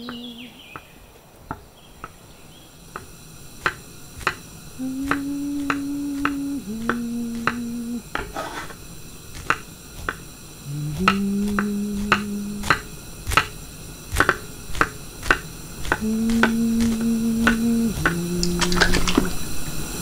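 Sparse film-score music: held low notes that step to a new pitch every second or two, with sharp clicks and taps scattered through, growing busier in the second half.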